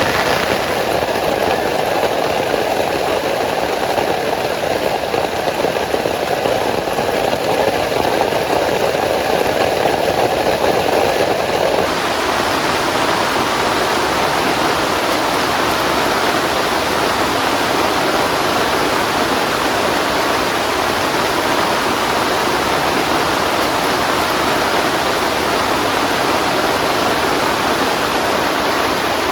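Heavy rain pouring steadily, a dense, even hiss. About twelve seconds in, it turns suddenly brighter and hissier.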